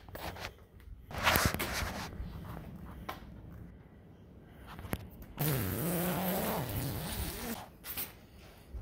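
Nylon sandblasting tent and its plastic sheeting rustling as they are handled. A noisy burst comes about a second in, and a longer zipping sound of about two seconds starts about five and a half seconds in.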